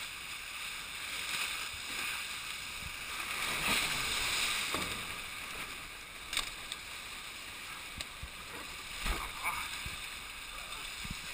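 Water rushing and spray hissing along a Tornado catamaran's hulls as it sails fast through big waves, swelling about four seconds in. A few short knocks, the loudest about nine seconds in.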